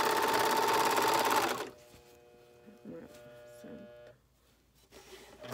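Overlock (serger) sewing machine running at speed, stitching and trimming a seam with a steady high whine. It stops about a second and a half in, and starts up again at the very end.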